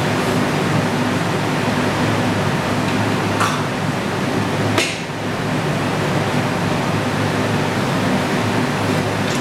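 Steady rushing hum of a large floor fan, with two sharp clicks, the first about three and a half seconds in and the second just under five seconds in.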